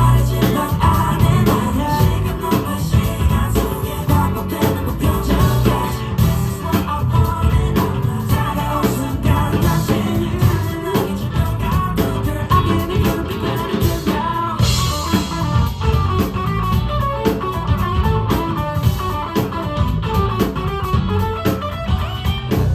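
Live band performance of a rock song: guitar over drums and bass, with some singing.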